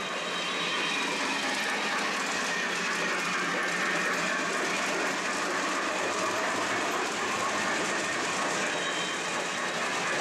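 O gauge model steam train running along the layout's track: a steady rolling clatter of metal wheels on the rails.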